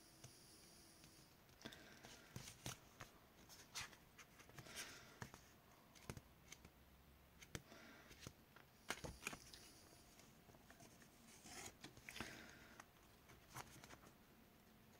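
Faint rustling of paper sticker sheets being leafed through and handled, with scattered light clicks and taps at irregular moments.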